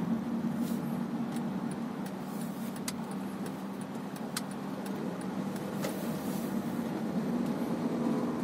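Steady engine and road hum heard inside the cabin of a 2011 Honda Civic with automatic transmission, driving slowly, with a few light clicks.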